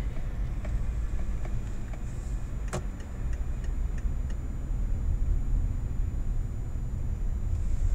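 Low, steady rumble of a car's engine and road noise inside the cabin as it creeps through traffic. There is a sharp click about three seconds in, and for a few seconds in the first half a run of light, evenly spaced ticks, about three a second.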